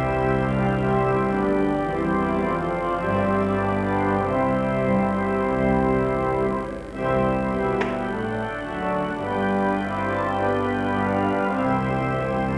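Church organ playing slow music in sustained, full chords that change about once a second, with a brief click about eight seconds in.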